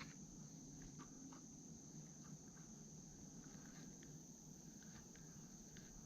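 Near silence: a faint, steady, high-pitched insect drone, with a few soft scattered clicks.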